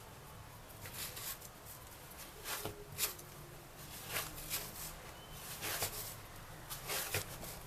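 Hands kneading a warm cornmeal dough on a granite countertop: faint, irregular pats and presses of the dough against the stone, roughly one a second.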